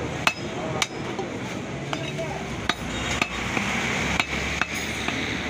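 Large butcher's knife chopping beef into pieces on a wooden log chopping block: a series of sharp, irregularly spaced knocks, about seven in all.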